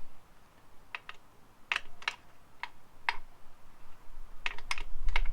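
Irregular sharp metallic clicks and taps of hand tools being handled on the bike's rear chain adjusters, coming more quickly near the end, with a low rumble joining in over the last second or so.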